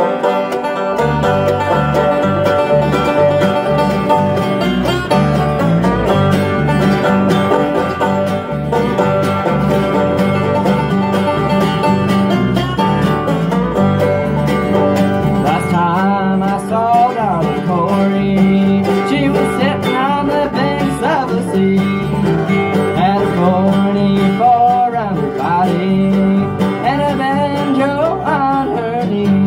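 Acoustic bluegrass band playing: five-string banjo, mandolin and guitars over a low stepping bass line. Lead singing comes in about halfway through.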